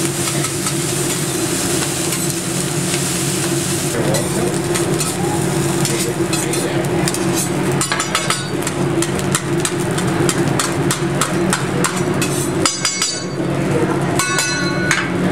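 Fried rice sizzling on a hot steel teppanyaki griddle while a metal spatula scrapes and taps against the cooking surface, the clicks and scrapes coming thick from about halfway through, over a steady low hum.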